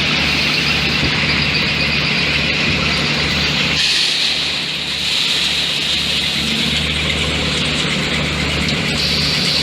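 Industrial machinery running steadily with a high, hissing whine over a pulsing low hum; the sound changes about four seconds in.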